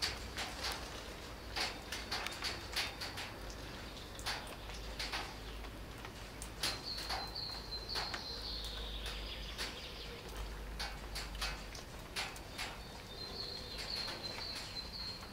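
Kittens eating from small plastic food trays: a run of irregular sharp clicks and smacks, several a second. A high thin chirping tone comes in twice, about seven seconds in and again near the end.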